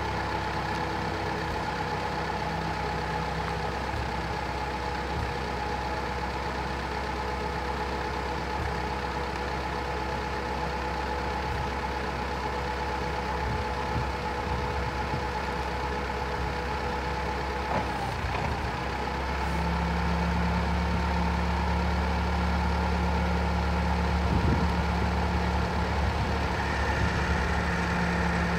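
LPG-fuelled Jelau forklift engine running steadily while the forks are raised and lowered on the mast. It gets louder and deeper about two-thirds of the way in.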